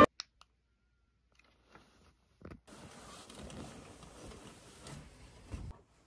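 Faint rustling of bed sheets and pillows, starting about two and a half seconds in, with a soft bump near the end.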